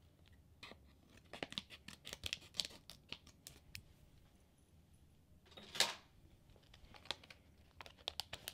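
Small lash scissors snipping and packaging crinkling and tearing as a package is cut open: a run of faint clicks and snips, with a louder rustle about six seconds in.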